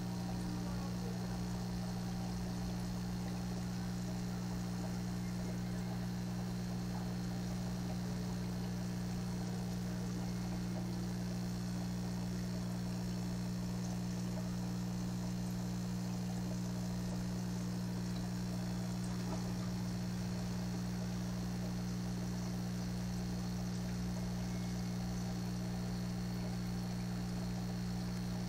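Steady hum of an aquarium air pump driving a sponge filter set to full flow, with bubbling water over it.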